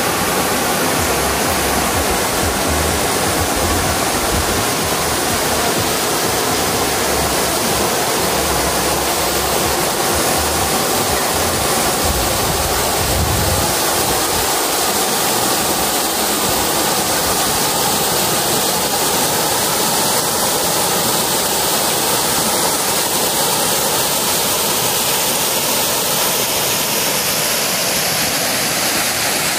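Waterfall: water falling and rushing steadily, with an uneven low rumble underneath during the first half that fades out about halfway.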